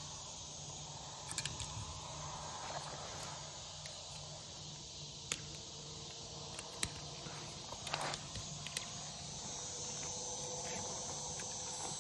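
Crickets and other insects chirring steadily in the grass. A few sharp clicks and light rattles come from a plastic standoff insulator and steel hot wire being handled on a fence post.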